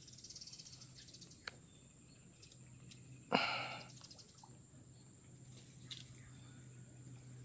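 Quiet pondside ambience: a faint, steady, high-pitched insect drone over a low hum. A short, sharp burst of noise stands out about three seconds in, with a small click before it.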